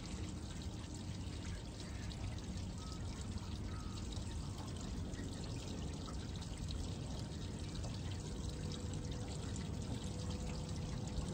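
Water pouring and trickling steadily, with a low rumble underneath.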